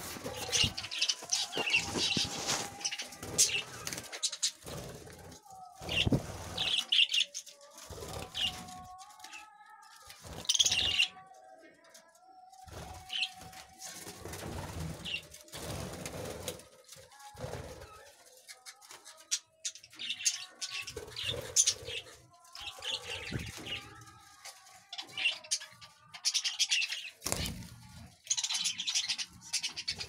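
A flock of budgerigars chattering in quick high chirps and warbles, with wings flapping as birds fly about. A few dull thumps break in now and then.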